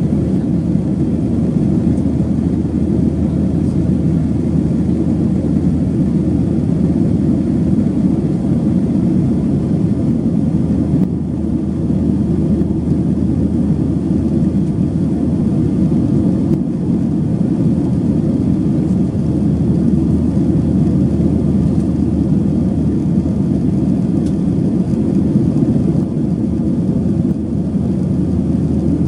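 Steady low rumble of a Boeing 737-800 airliner heard from inside the cabin, even and unchanging throughout.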